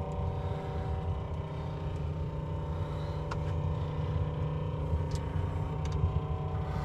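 A motor running steadily: a low rumble with an even hum above it, and a couple of faint ticks.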